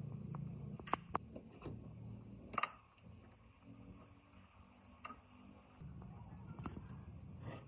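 Scattered light clicks and knocks of tools and metal parts being handled, over a low hum. The two loudest knocks come about one and two and a half seconds in.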